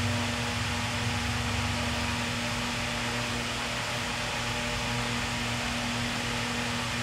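Steady mechanical hum with a low drone and a few faint steady tones, like a fan or small motor running.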